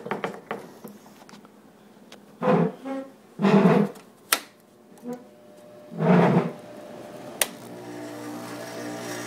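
Three short, loud pitched hums, then near the end a click and an old Sharp window air conditioner starting up into a steady mechanical hum. Its compressor sits on dry-rotted rubber grommets, so the vibration is passed into the frame.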